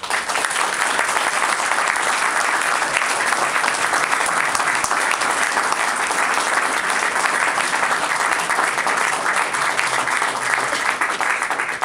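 Audience applauding steadily in a room, starting suddenly and tapering off near the end.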